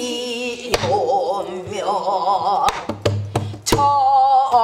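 Pansori singing in a wavering, heavily ornamented voice, marked by a buk barrel drum struck three times.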